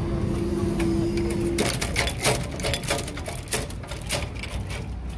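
Level crossing barrier's power unit humming steadily as the boom rises, cutting off about one and a half seconds in. A run of sharp clicks and rattles follows.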